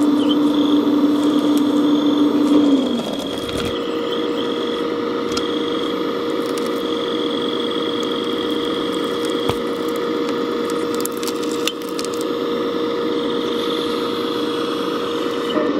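Radio-controlled scale-model CAT 374D excavator running: a steady motor whine that drops in level and changes to a higher pitch about three seconds in, with a few light clicks as the boom and bucket move.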